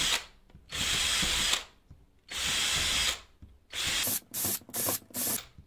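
Power drill with a small pilot bit boring holes through the hollow uPVC skins of a window frame, in repeated bursts. There are two runs of about a second each, then a quick series of about five short bursts near the end.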